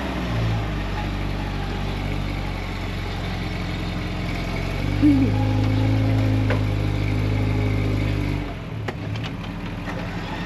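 Off-road 4x4's engine running under load, its revs rising about halfway through and easing off near the end, followed by a few sharp clicks or knocks.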